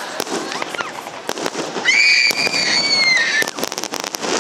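Aerial fireworks shells bursting in a series of bangs and crackles. About two seconds in, a high whistling tone sounds over them for about a second and a half, dipping slightly at its end; it is the loudest thing heard.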